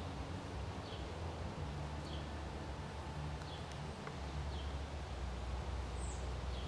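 Outdoor ambience with a short, high, falling animal call repeated about once a second, over a steady low rumble.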